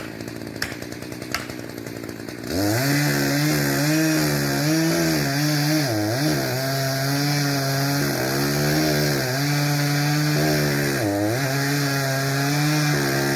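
Echo CS-590 Timber Wolf two-stroke chainsaw revving up about two and a half seconds in and then running at high speed through wood, its pitch dipping briefly twice as it bogs under the load of the cut. Before it comes in, a light tick repeats about every two-thirds of a second.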